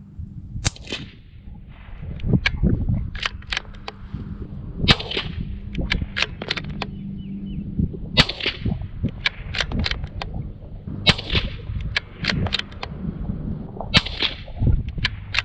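Five shots from a CZ 457 Pro Varmint bolt-action .22 LR rifle, about three seconds apart, with quieter clicks of the bolt being worked between shots.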